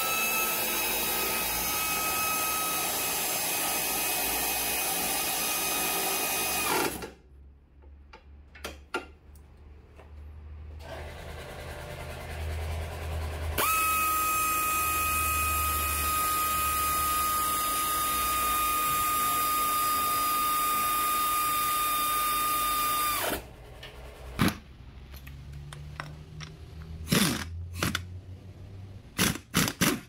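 Pneumatic air ratchet running in two long steady whining runs with hissing exhaust air, the first about seven seconds, the second about ten seconds, as it turns bolts on a car's front suspension. A few sharp metal clicks and knocks come near the end.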